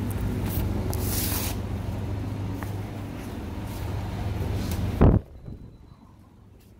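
Steady indoor hum with light handling rustle, then a door thuds shut about five seconds in and the hum drops away, leaving a much quieter background.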